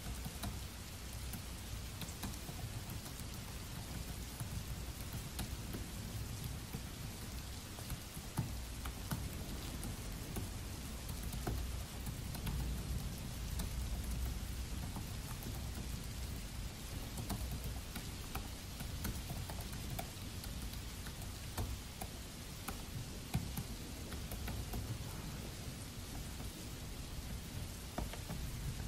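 Steady rain with a low rumble underneath, and the scattered light clicks of fingers typing on a Dell laptop keyboard.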